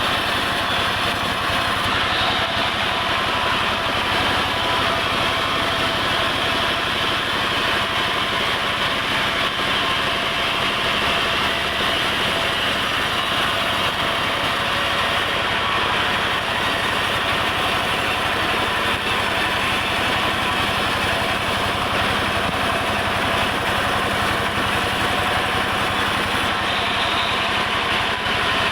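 Sawmill machinery running steadily: an engine-driven log saw with an even, unbroken mechanical hum that holds the same pitch and level throughout.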